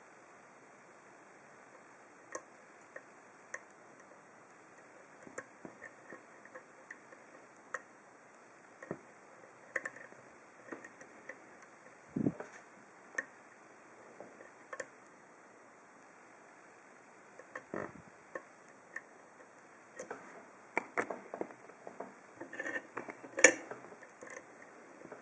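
Lock pick working the pins of a Lockwood 301/63 padlock's five-pin cylinder under a tension wrench: scattered light metallic clicks, coming thicker after about twenty seconds, with one sharper click near the end.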